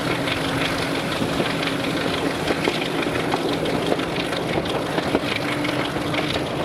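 Diesel locomotive engine running with a steady drone and a held tone, with scattered clicks and rattles over it.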